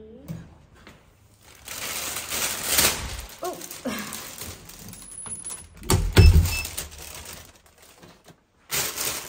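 Plastic carrier bag rustling as it is picked up and carried, with a single heavy thump about six seconds in as the front door shuts. More bag rustling near the end.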